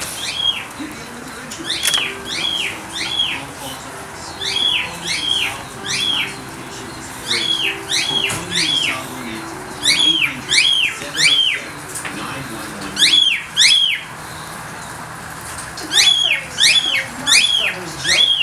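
Pet cockatiels calling: short, loud, whistled calls that each sweep up and drop back down, in runs of two to four with short pauses between. Behind them is a steady hiss of rain.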